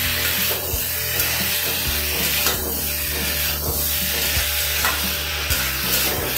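Cubed potato, paneer and pointed gourd sizzling in spiced oil in a steel wok, with a metal spatula stirring and scraping them round the pan.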